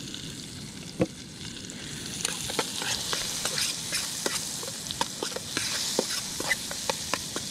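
Chopped chili sizzling in melted butter in a small camping frying pan, with a metal fork clicking and scraping against the pan as it is stirred. A sharper knock about a second in, and the clicks come more often from about two seconds on.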